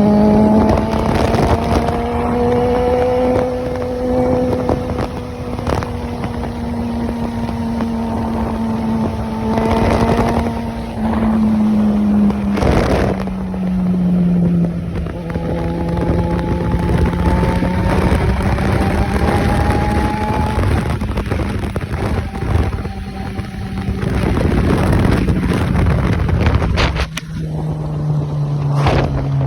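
Jaguar XJ6 straight-six engine running loud through an exhaust that is only a bare pipe with no muffler. Its note rises and falls slowly, dropping in pitch twice.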